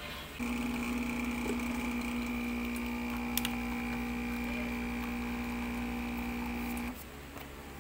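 Home espresso machine's pump running steadily through a shot, a buzzing hum while espresso pours from the portafilter. It starts about half a second in and cuts off about a second before the end, as the shot ends.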